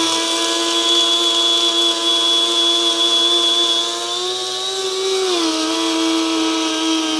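Mr. Coffee Simple Grind blade coffee grinder's motor running steadily while grinding a half load of beans toward a fine grind. Its steady whine rises slightly in pitch and then dips about five seconds in.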